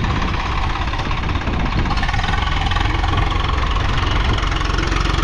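Swaraj 855 tractor's three-cylinder diesel engine running steadily at full throttle in third gear while pulling a disc harrow.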